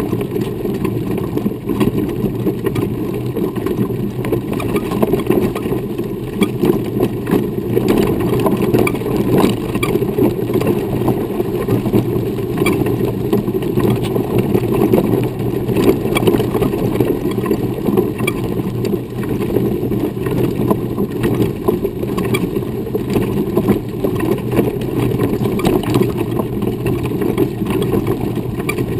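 Steady rumble and rattle of a wheelchair's wheels rolling over a dirt forest trail, heard through a camera mounted on the chair, with a constant patter of small clicks from grit and pine debris under the tyres.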